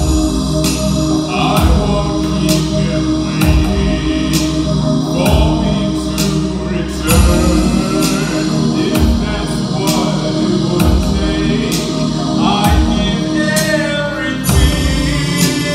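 Live electronic music: a sustained keyboard-like chord over a beat of low thumps and sharp hits, with a voice singing over it in drawn-out, gliding lines.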